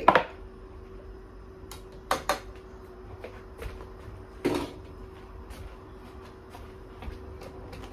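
Kitchen handling noises: a sharp knock at the start, a quick double knock about two seconds in and a short clatter about four and a half seconds in, like containers, utensils or a cupboard door being handled, over a steady faint hum.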